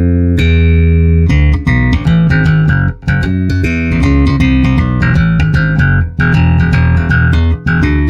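Solo electric bass playing a line of plucked notes through a Traynor YBA300 all-tube bass amp head. The Fender Ultra P/J bass has its pickups blended about 60/40 toward the precision pickup, heard as a mic'ed cabinet mixed with the amp's DI signal. One note rings longer near the start, then a steady string of shorter notes follows.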